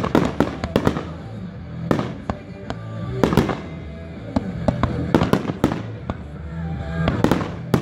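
Consumer aerial fireworks going off in quick succession: a run of sharp bangs from bursting shells mixed with crackle, loudest about a third of the way in and again near the end.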